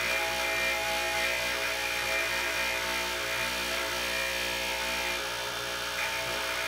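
Bench grinder running steadily with a steel engine valve pressed against its spinning wheel, scrubbing carbon off the valve: an even motor hum under a rasping hiss.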